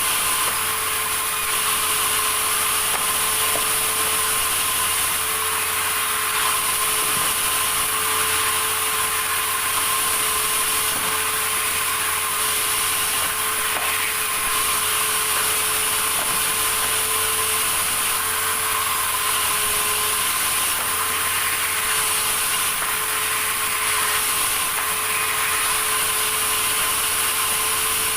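Sawmill saw running steadily, with a constant whine over a broad noise.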